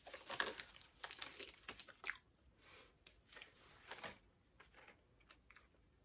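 Faint crinkling and rustling of a pleated paper liner as it is peeled off a small fried rice-cake dessert, in a few short spells during the first four seconds.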